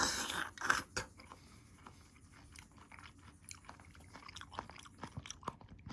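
A person biting into crunchy food close to the microphone, with a loud crunch in the first second, then chewing with many small crisp clicks.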